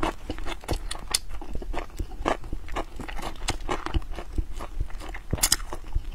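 Close-miked wet chewing and lip-smacking of fatty braised pork belly: a run of irregular sticky clicks and smacks, the loudest about five and a half seconds in.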